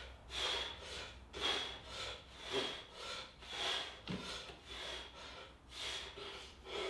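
A man breathing hard and rhythmically through a set of pull-ups, about one loud breath a second.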